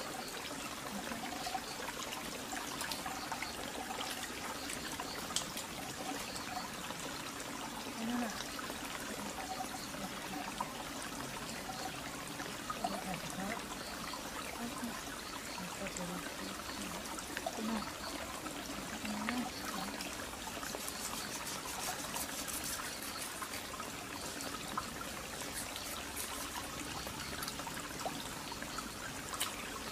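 Shallow rocky stream trickling steadily, with a few faint clicks and small splashes from hands working in the water.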